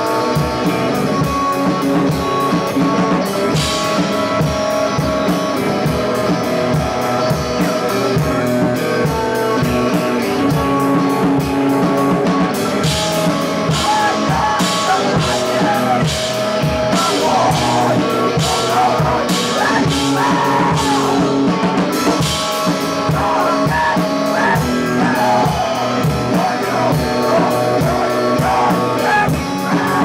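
Live screamo band playing loud: a drum kit hit in rapid, dense strokes over electric guitar.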